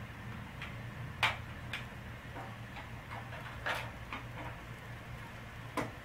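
Scattered light clicks and taps of a GPS mount and its power cable being handled and fitted on motorcycle handlebars, the loudest about a second in, over a steady low hum.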